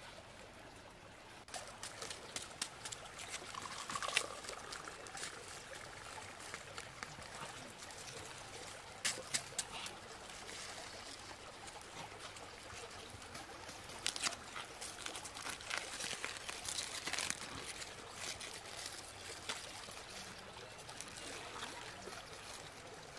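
Aluminium foil crinkling and crackling in irregular bursts as it is unwrapped from potatoes baked in it, over a steady hiss.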